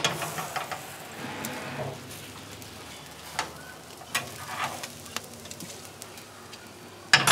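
Meat sizzling over a charcoal grill: a steady hiss with scattered small crackles. A sudden louder clatter comes right at the end.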